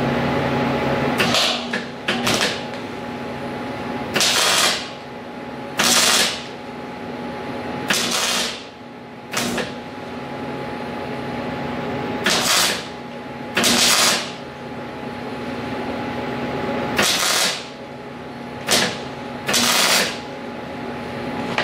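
MIG welder laying about eleven short weld bursts, each crackling for half a second to a second with brief pauses between, to add metal to the bottoms of steel bolt holes. A steady hum runs underneath.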